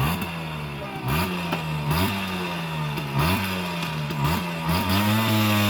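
Simson S51 Elektronik's 50 cc two-stroke single-cylinder engine, fitted with a reproduction exhaust, revving up and falling back about once a second, then climbing to higher revs and holding there near the end.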